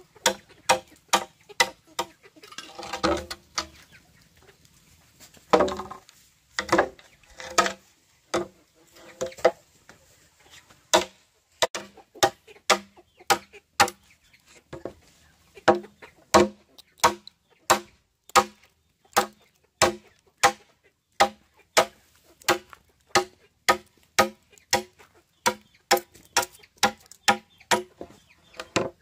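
Repeated chopping: sharp strokes about twice a second, steady from about ten seconds in, and less regular, with some rustling, in the first eight seconds.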